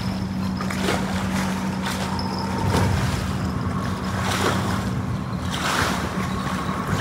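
Steady motor hum with wind buffeting the microphone in soft gusts.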